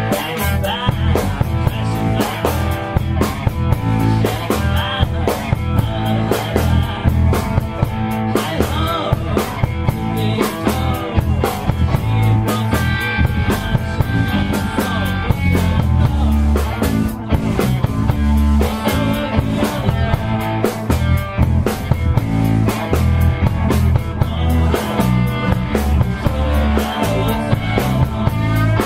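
Rock band playing: drum kit keeping a steady beat under electric guitar, with a heavy low end. A guitar holds a long high note about halfway through.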